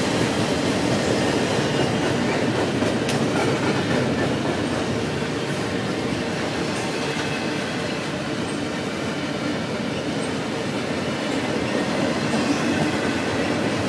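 Double-stack intermodal train's well cars rolling past at speed, a loud, steady run of steel wheels on the rails.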